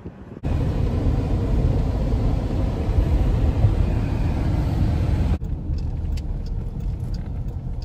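Steady road and engine rumble inside a moving car's cabin, starting abruptly about half a second in. About five seconds in it drops to a softer, duller low rumble.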